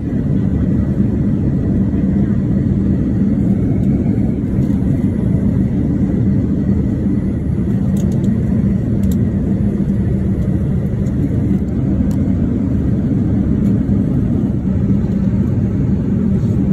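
Steady low roar of a Boeing 787-9's cabin at cruise, airflow and engine noise with a constant hum, unchanging throughout. A few faint clicks sound over it, around eight, nine and twelve seconds in.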